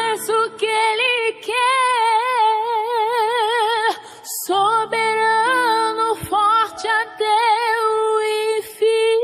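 A gospel worship song: a woman's voice sings long held notes with wide vibrato over soft sustained accompaniment, pausing briefly about four seconds in.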